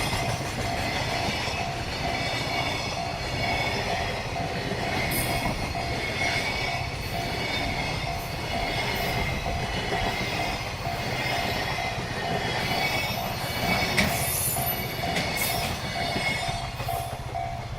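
Container freight wagons rolling past at a level crossing: steady wheel-on-rail noise with brief high wheel squeals now and then. The crossing alarm rings a repeating bell tone throughout.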